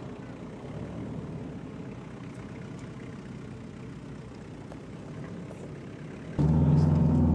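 Jeep Cherokee's engine running under load as it climbs a steep sand bank, heard from outside the vehicle and slowly fading. About six seconds in it cuts suddenly to a much louder, steady low engine drone.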